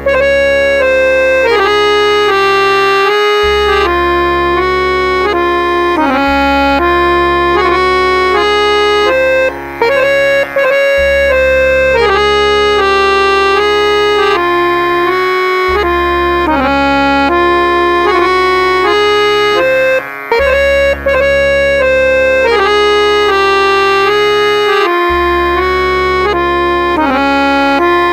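Harmonium playing a lehra in raga Bihag with C# as its tonic, over a held low note. It is a short melodic loop that comes round once every 14-beat Ada Chautaal cycle at 80 beats per minute, about every ten and a half seconds.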